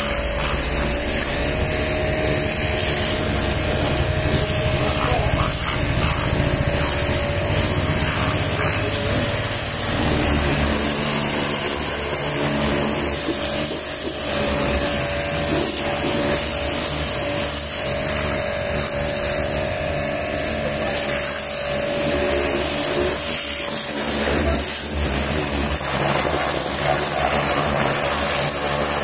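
Pressure washer running steadily, its motor humming with a steady whine under the hiss of the high-pressure jet spraying onto a car's body panels and wheel. The whine drops out about four-fifths of the way through while the spray carries on.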